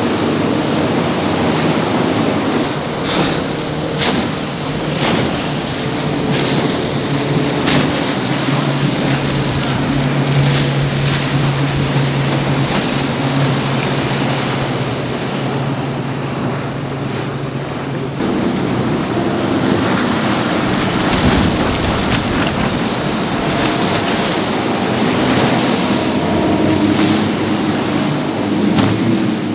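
Motorboat engines running hard through surf, with wind buffeting the microphone. A steady low engine drone holds for about ten seconds and drops away suddenly just past the middle, with other engine notes following.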